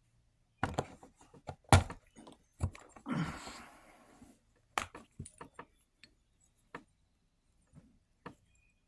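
Irregular taps and knocks of a digging tool chipping at a plaster gem-dig brick to free a piece of pyrite, the loudest knock just under two seconds in, with a scraping rub lasting about a second around three seconds in.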